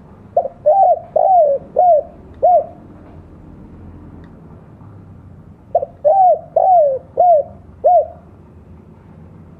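Spotted dove (tekukur) cooing its 'kuk dua' song: two phrases of about five short, arched coo notes each, the middle note the longest, the second phrase starting a few seconds after the first ends.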